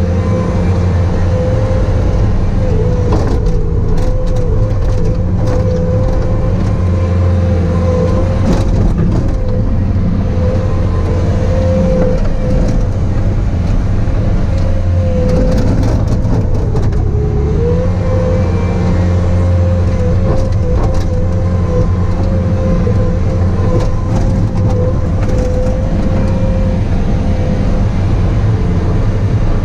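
Bobcat T595 compact track loader's diesel engine running steadily under load while pushing snow, with a steady whine over the engine drone that dips briefly in pitch about halfway through.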